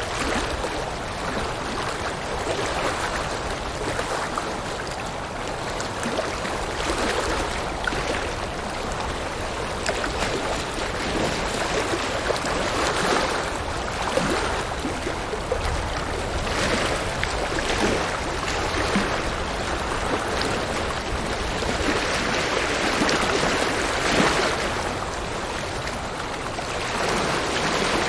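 River water rushing steadily over rocks, with small gurgles and splashes coming and going in the flow.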